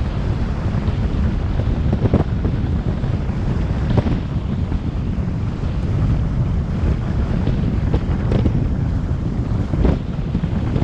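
Wind buffeting the microphone of a bike-mounted camera as a recumbent bicycle speeds downhill: a loud, steady low rumble, with a few sharp knocks along the way.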